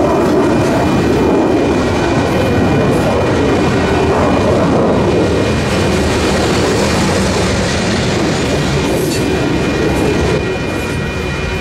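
Union Pacific freight train of covered hopper cars rolling past close by: steady wheel-on-rail noise with a faint, high, steady tone over it, easing slightly about ten seconds in.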